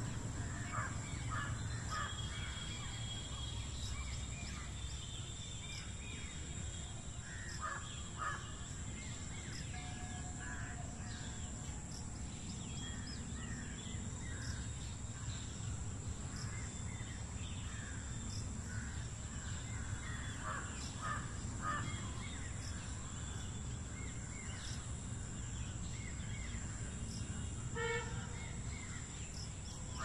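Outdoor bird chorus: many short calls from several birds scattered throughout, over a steady low rumble and a faint steady high whine.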